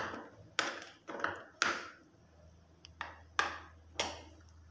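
Metal spoon scraping and clinking against a ceramic bowl while stirring a thin flour-and-water paste smooth, about five separate strokes.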